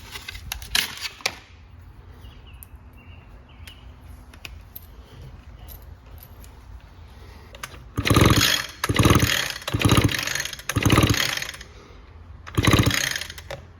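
Recoil starter rope on an Echo SRM two-stroke string trimmer yanked four times in quick succession, the engine spinning over with a fast rasp but not firing, as in a spark test with the plug out. A few light clicks of handling come first.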